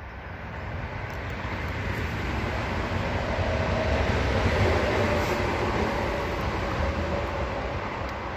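A vehicle passing by: a steady rumbling noise with a faint hum in it, swelling to its loudest about halfway through and then fading.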